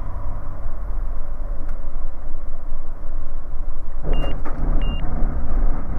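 Bristell light aircraft engine and airflow drone at low power in the cabin as it comes in to land. Two short high beeps sound about four and five seconds in, and the low rumble grows heavier from about four seconds.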